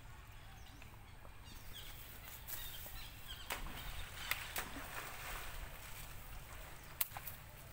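A monkey splashing into shallow pond water: a short stretch of splashing around the middle, with a few sharp slaps in it. A single sharp click comes near the end.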